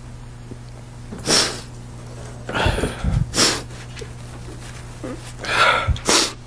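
A man crying into a microphone: a handful of sharp sniffs and shaky, sobbing breaths, some close enough to thump the mic, over a steady low hum.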